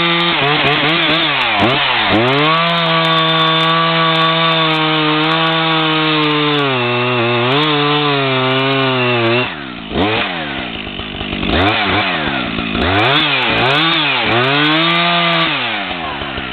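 Two-stroke chainsaw at full throttle cutting into a standing tree trunk for a felling back cut. The engine note holds steady under load, dips briefly about ten seconds in, then rises and falls several times before dropping back near the end.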